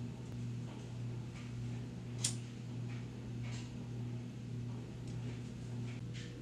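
Room tone: a steady low electrical hum, with one sharp click a little over two seconds in and a few faint ticks.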